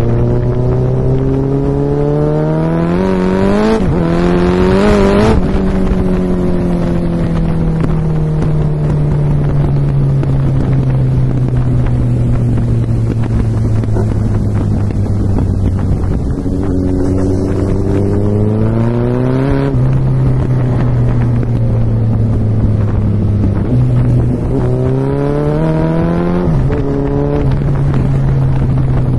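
Sport motorcycle's engine and exhaust accelerating hard, the revs climbing with quick upshifts about four and five seconds in, then easing off on a long falling note. It pulls up again with a shift near 20 seconds and once more around 25 to 27 seconds. Wind rushes over the microphone throughout.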